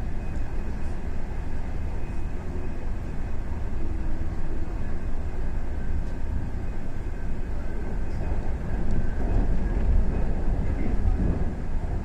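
Passenger train running at speed, heard from on board: a steady low rumble of wheels on the rails, swelling louder about nine seconds in.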